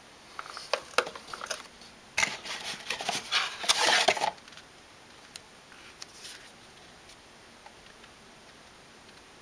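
Computer hardware being handled: a dense run of clicks and rattles of hard parts over the first four seconds or so, then a few faint clicks.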